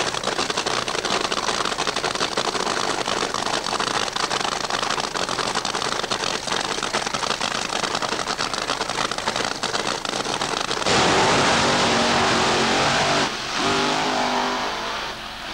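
Drag-racing funny car engines running at the start line with a fast, crackling beat. About eleven seconds in they break into a sudden, much louder full-throttle launch. The engine pitch falls away as the cars run down the track.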